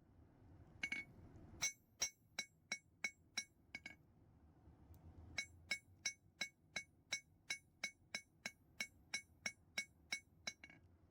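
Hammer blows on a horseshoe nail over an anvil, each stroke ringing, at about three a second, with a short break about four seconds in before the steady hammering resumes: the shank being drawn out and evened on all sides.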